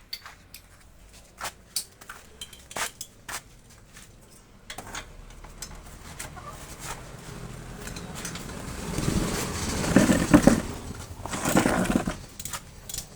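Metal tools and parts clinking in scattered sharp clicks during repair work on a motor. About five seconds in, a rough whirring noise starts and grows louder, peaking near the end.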